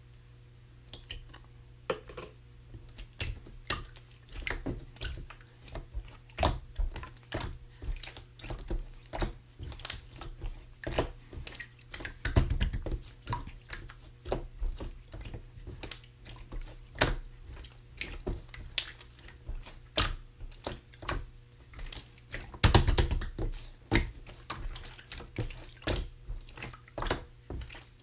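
Clear slime being worked by hand, giving a quick, irregular run of wet clicks and pops, several a second. Two longer, louder squelches come, one about halfway through and one later on.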